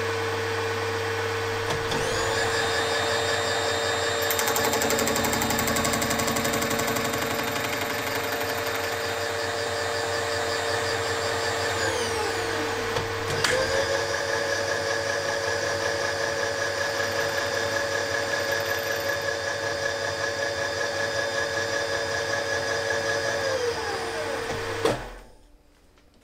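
Machine tool running steadily while a gear cutter cuts teeth in the brass cam gear blank. A higher whine spins up and winds down twice, each time lasting about ten seconds, and the machine switches off near the end.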